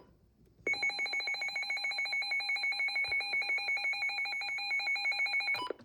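Midland WR300 NOAA weather radio sounding its siren alert: a shrill, rapidly pulsing electronic alarm tone that starts about a second in and runs steadily for about five seconds. It is cut off near the end by a short key beep.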